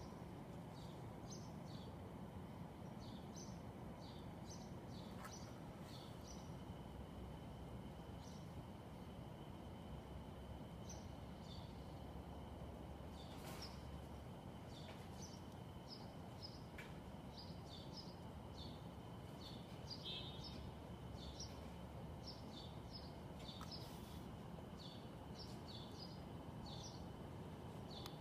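Steady low background hum of the city with many short, high chirps from small birds, repeated throughout.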